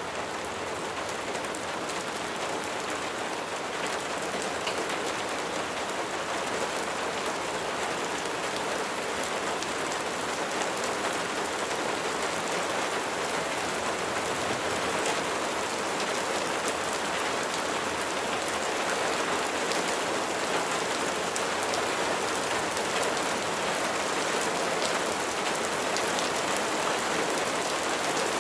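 Steady rain falling: a dense, even hiss with scattered sharp drop ticks, growing slowly a little louder.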